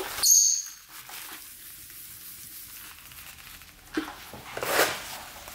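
A male peach-faced lovebird in breeding condition gives one short, shrill chirp just after the start. About four seconds in come a few short, scratchy rustling sounds.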